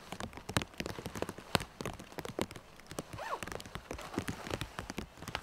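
Light rain: large drops landing irregularly as sharp taps on the tarp, the poncho and the forest floor. About three seconds in there is one short rising-then-falling whistle-like note.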